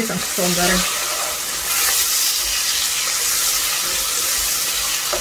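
Onions, tomato and carrot in broth sizzling and simmering in a pot, a steady hiss, while a wooden spatula stirs them around.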